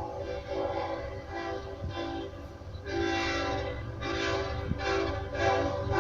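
Freight diesel locomotive air horn sounding a chord in short repeated blasts, stopping and restarting several times, louder from about three seconds in. The locomotive's engine rumbles low underneath.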